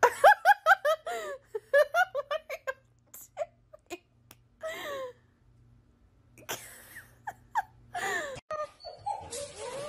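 A person laughing hard in a quick run of high-pitched giggles over the first few seconds, then a few more scattered laughs.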